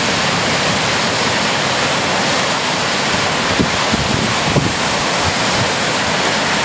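Storm-driven Lake Erie waves breaking and washing up a flooded shoreline and against a concrete break wall: a steady rush of surf. Strong wind buffets the microphone, with a few low gusts about halfway through.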